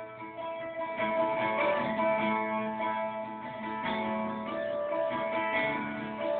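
Acoustic guitar playing an instrumental passage of a folk song, strummed chords sounding about once a second.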